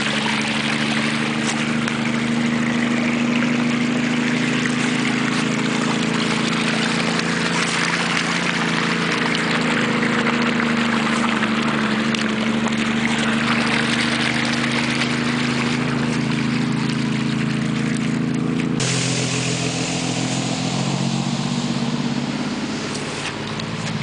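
Runoff water running and trickling over stones and grass, with a steady low engine hum beneath it that shifts in pitch near the end.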